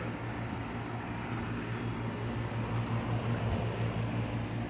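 Outdoor central air-conditioner condenser units running in cooling mode: a steady low compressor hum under even fan noise.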